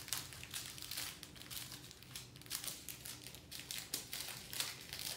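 Small plastic bags of diamond painting drills crinkling as they are handled and sorted, a run of irregular crackles.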